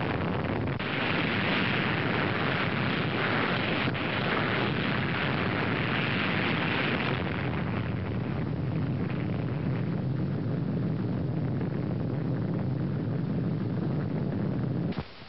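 Underwater atomic bomb detonation: a sudden onset into a long, steady blast noise, brighter at first and then lower, that cuts off abruptly near the end.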